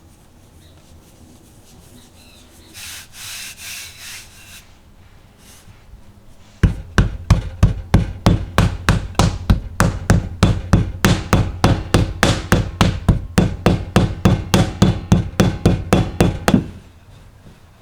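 A knife chopping on a wooden cutting board: a fast, even run of sharp knocks, about four a second, that starts suddenly about seven seconds in and stops abruptly near the end. A little soft rustling comes a few seconds before it.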